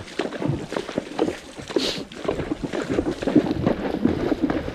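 A Walking Horse's hooves splashing and knocking through a shallow creek in a quick, irregular patter, with wind buffeting the microphone.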